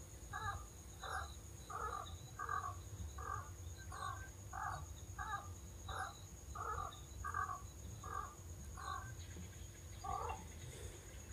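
Cleaver chopping sea snail meat on a wooden plank: a steady run of about a dozen short chops, roughly one and a half a second, pausing about nine seconds in before one more chop.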